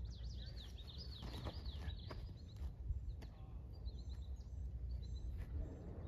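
Wild songbirds chirping, a run of quick, repeated high chirps, over a low steady rumble.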